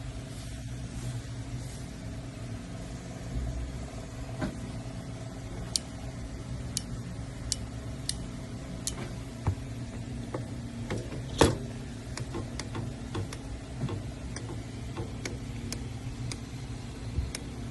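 A steady low mechanical hum, like a running engine, with scattered sharp clicks and one louder knock about eleven seconds in.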